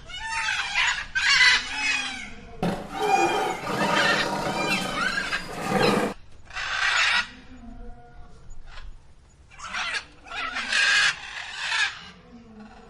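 Birds calling in repeated short bouts, with a dense burst of many overlapping calls lasting about three seconds from a few seconds in.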